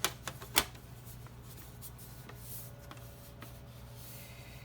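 MacBook Pro bottom case being fitted back onto the laptop: two sharp clicks about half a second apart, the second the louder, then a few faint ticks and light handling over a steady low hum.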